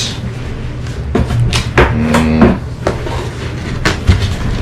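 A cardboard shipping box and its packaging being handled: several short knocks and rustles, with a short pitched sound about two seconds in.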